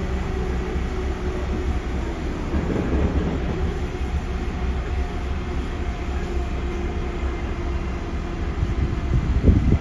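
JR Central 311 series electric train running at steady speed, heard from inside: a constant rumble of wheels on rail with a steady hum from the traction equipment. A brief clatter comes near the end.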